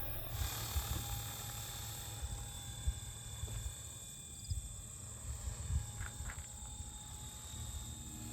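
Faint outdoor background: a few steady high tones over a low, fluttering rumble, with a couple of soft ticks about six seconds in.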